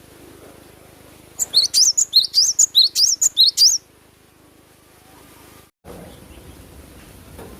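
Cinereous tit (gelatik batu) singing a rapid series of about a dozen short, high, rising chirps over a little more than two seconds.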